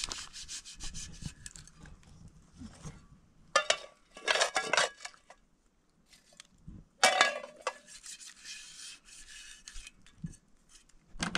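Repeated rubbing and scraping by hand, in quick strokes at first, then in louder separate bursts, with a sharp knock about seven seconds in.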